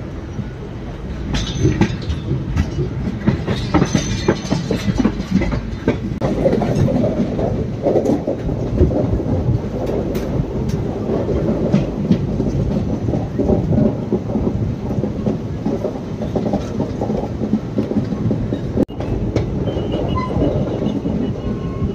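Passenger train coaches running along the track, a steady rumble with wheels clattering over rail joints, heard from beside the open coach side. Faint high wheel squeals come in briefly a couple of times, the last near the end as the train rounds a curve.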